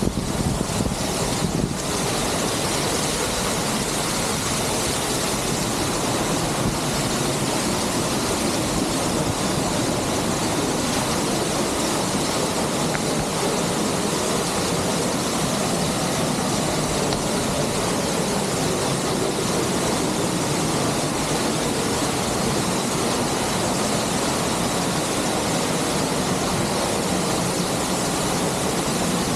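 Steady, loud roar of a large waterfall: a continuous rush of falling water close by.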